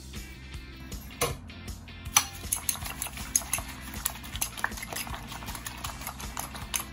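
Eggs being beaten with a utensil in a ceramic bowl: quick, repeated clinks of the utensil against the bowl from about two seconds in, after a single knock about a second in.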